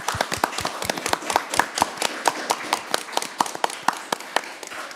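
Applause from a small group of people, the separate hand claps distinct and rapid.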